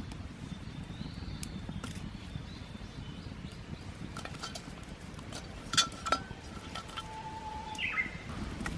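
Two sharp metallic clinks a little past the middle, each followed by a brief ringing tone, over a steady low outdoor background with scattered small crackles; a short bird call comes near the end.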